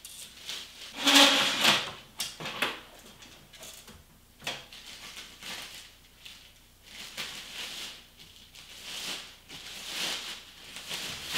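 Clear plastic wrapping on a roll of seamless backdrop paper rustling and crinkling as it is pulled and handled, in irregular bursts with a few small clicks; the loudest stretch comes about a second in.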